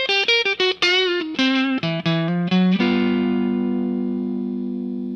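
Intro music: an electric guitar with effects plays a quick run of short single notes, some bent in pitch, then strikes a chord at about three seconds in that rings on and slowly fades.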